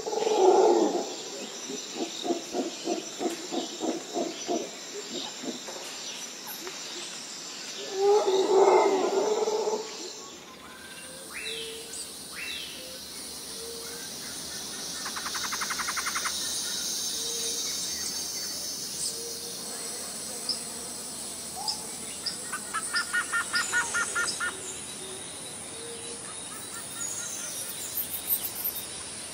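Lions calling: a loud call trailing off into a run of quick short grunts, then a second loud call about eight seconds in. Then birdsong takes over, with scattered chirps and a few fast trills over a steady insect hiss.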